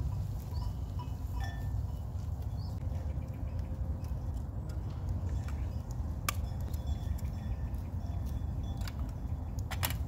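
Bells on a grazing flock of sheep clinking and tinkling on and off, with a couple of sharp clicks, over a steady low rumble.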